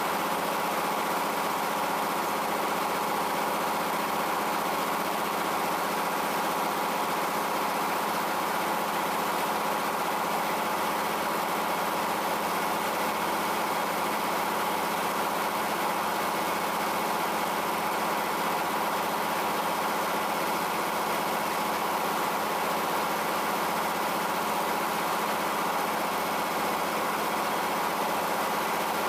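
Circular sawmill's power-unit engine idling steadily between cuts, the saw not under load.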